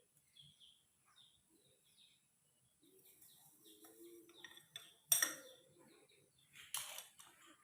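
Faint bird chirps in a quiet workshop, with two sharp clicks about five and seven seconds in.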